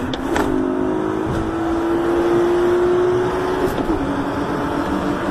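Car engine running, its pitch climbing slowly through the first few seconds and then dropping back, with a couple of short clicks right at the start.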